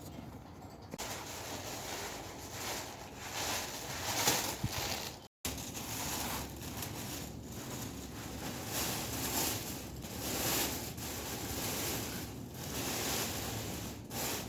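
Wind buffeting the microphone: a rushing noise that rises and falls in surges, with a brief dropout about five seconds in.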